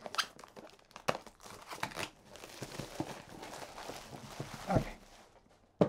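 Plastic shrink-wrap being torn and crumpled off a card-game box: a run of crinkles and crackles, with a dull knock about five seconds in.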